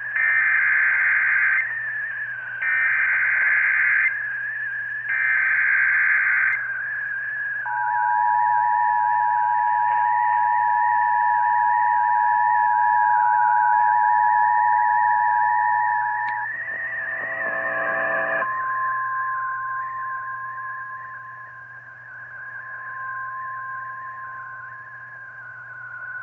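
Emergency Alert System tones heard over a radio. First come three short screeching data bursts, the SAME header. Then an eight-second two-tone attention signal plays, and after a brief jumble of tones, a single steady alert tone. Under it all runs a constant wavering whistle and a low hum.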